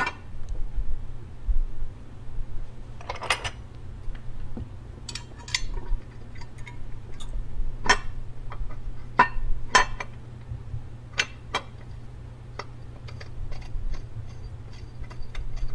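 Light, scattered metallic clinks and taps as the drive inverter's metal base plate and its mounting bolts are handled and set in place, over a steady low hum.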